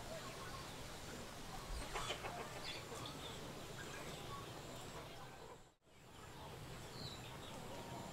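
Faint yard ambience with chickens clucking now and then. The sound drops out for a moment a little before six seconds in.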